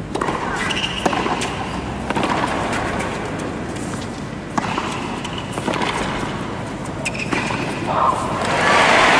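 Tennis rally on a hard court: a serve and then racquet hits and ball bounces, sharp strikes about a second apart. Crowd applause swells near the end as the point finishes.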